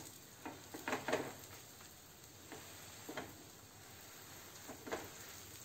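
Butter sizzling faintly on a hot tawa as halved pav buns are pressed down into it, with a few soft taps and rustles of bread and hands against the pan.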